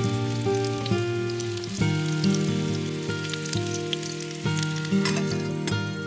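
Hamburger patty sizzling in a grill pan over a wood fire, a fine crackling hiss. Slow background music with sustained notes runs over it and is the louder sound.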